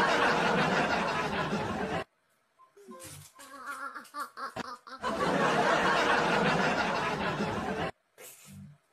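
Crowd laughter from a laugh-track sound effect, played twice: a dense three-second burst at the start, faint voices, then the same burst again about five seconds in.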